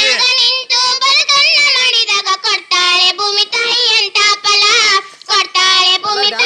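A child singing in a high voice, a wavering melody in short phrases broken by brief pauses.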